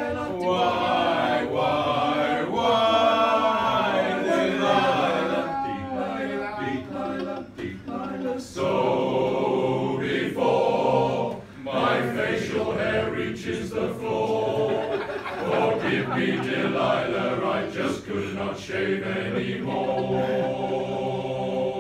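Male voice choir singing a cappella, several voices in harmony holding long chords, with short breaks between phrases.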